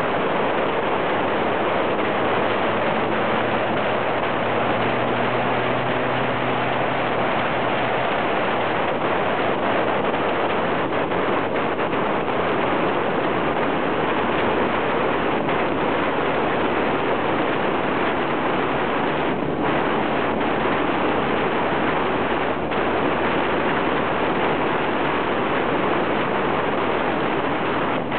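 Motorcycle riding at road speed, heard from a low bike-mounted camera: a steady rush of wind noise over the microphone, with the engine's note faintly underneath, its pitch shifting a little in the first several seconds.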